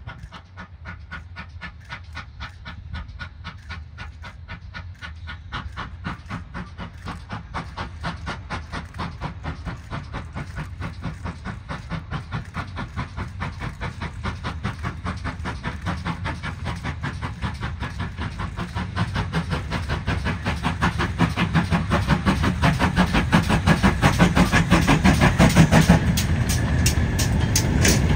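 GWR 0-6-0 pannier tank locomotive 9681 working a goods train toward the listener, its even, rapid exhaust beats growing steadily louder as it approaches. Near the end the engine passes and the sound gives way to the rumble and clatter of loaded hopper wagons rolling over the rail joints.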